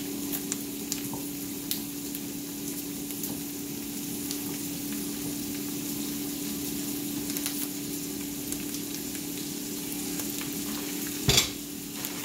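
Honey sesame sauce of butter, garlic, soy sauce and vinegar sizzling steadily in a hot stainless skillet, with small crackles and a steady low hum underneath. A single sharp knock near the end.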